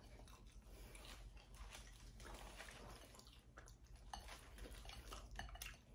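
Faint eating sounds: chewing, with small scattered clicks and crackles as seafood from a boil is picked up and pulled apart by hand.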